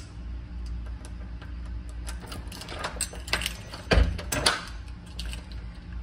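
Elevator car in motion: a steady low hum, with scattered clicks and light rattles and a heavier knock about four seconds in.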